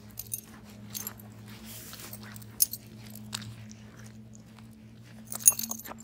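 Metal jingling and clinking of a dog's collar hardware and leash clip as the dog walks: a few scattered clinks, then a quick run of jingles near the end, over a steady low hum.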